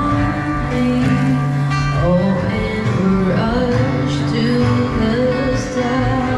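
Live band music: a singer with guitar accompaniment, the voice carrying a held, wavering melody over steady bass notes.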